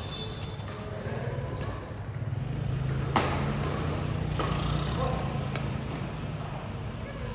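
Badminton rally: rackets hitting a shuttlecock about four times, a little over a second apart, the loudest hit near the middle, with short high squeaks of shoes on the court floor between hits. A low steady hum runs underneath.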